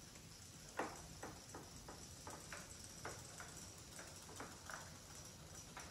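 Zuru Robo Fish and knockoff robotic toy fish swimming in bathtub water, their flapping tails making small, irregular ticks and plips at the surface, about two a second, the loudest about a second in.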